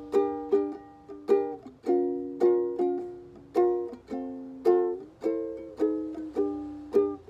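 Background music on plucked strings: chords with quickly fading notes in a steady, even rhythm.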